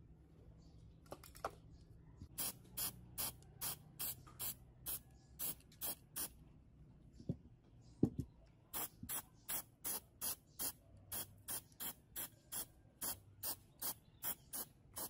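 Aerosol spray-paint can spraying in short, even spurts, about two or three a second, with a pause in the middle broken by a single knock.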